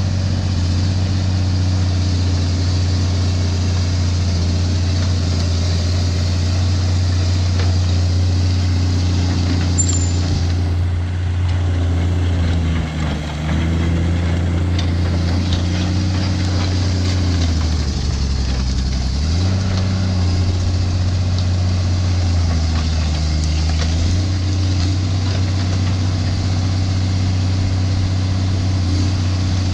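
A vehicle engine running steadily under load, its pitch dropping and coming back up three times.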